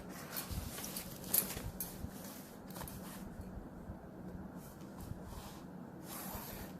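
Faint scratching and rustling of a line being drawn on a large sheet of drawing paper, with a few light clicks and taps, mostly in the first half.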